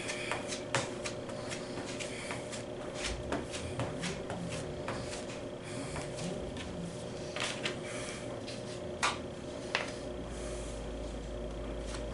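Spreader scraping and tapping on a mixing board as body filler is worked together with hardener: irregular strokes and sharp clicks, the loudest about nine seconds in. Near the end the spreader is scraped clean against a second spreader.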